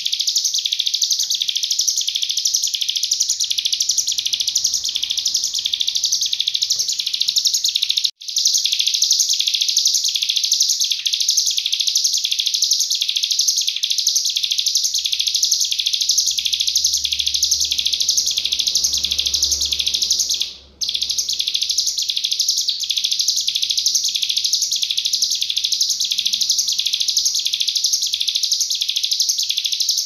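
Ciblek gunung (a prinia) singing a dense, unbroken run of rapid high-pitched notes, several a second, in the fast 'nembak' style. The song cuts out for an instant twice.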